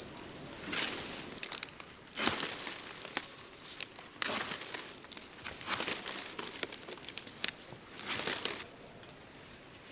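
Green coconut palm fronds being torn and stripped by hand: a series of about six short rips and rustles with quieter gaps between, stopping about a second before the end.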